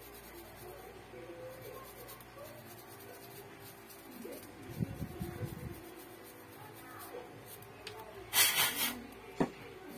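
Small toothbrush bristles scrubbing inside the charging port of a Samsung Galaxy A10, a faint scratchy rubbing, cleaning a port suspected of causing a charging error. About eight and a half seconds in there is a short, louder hiss, then a single click.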